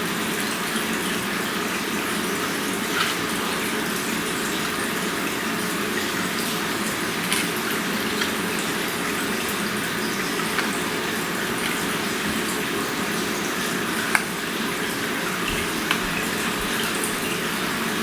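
Steady rushing, hiss-like background noise, with a few faint clicks from a small screw being driven into a plastic battery cover.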